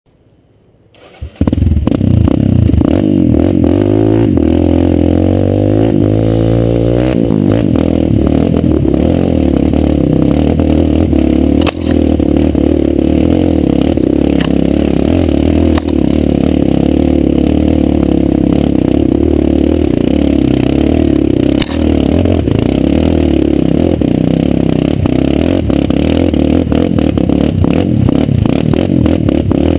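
Kawasaki KLX150's single-cylinder four-stroke engine running under load as the dirt bike rides a rough trail. It comes in suddenly about a second in and climbs in pitch over the next several seconds, then holds fairly steady, with three brief dips where the throttle is let off.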